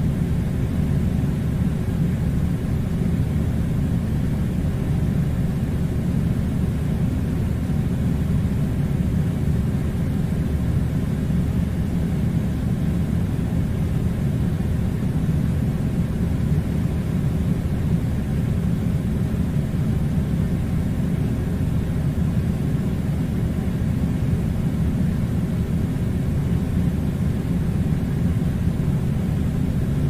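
Air conditioner running: a steady, unchanging low rumble of noise.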